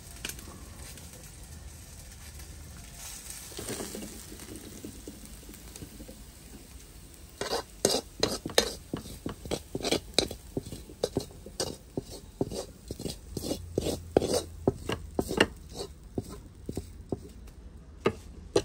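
A wok of greens simmering with a soft steady hiss. About halfway, a quick irregular run of clicks and clatter follows as roasted pea eggplants, garlic and shallots are tipped from a pan onto a china plate and a metal spoon scrapes them off the pan.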